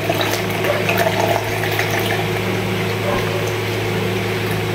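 Fruit-cocktail syrup pouring from a tilted can in a thin, steady stream into a part-filled plastic pitcher, splashing and trickling continuously, over a constant low electrical hum.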